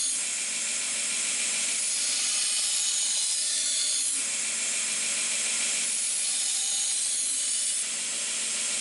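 Belt grinder with a 120-grit belt grinding the edge of a scythe-steel knife blade: a steady, even hiss of steel on abrasive. It eases slightly near the end as the blade comes off the belt.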